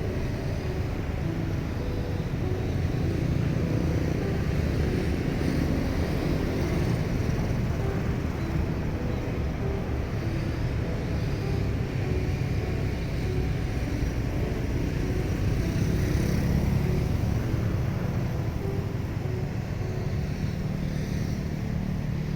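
Steady low engine rumble with an even hiss over it, swelling slightly a few seconds in and again near the middle.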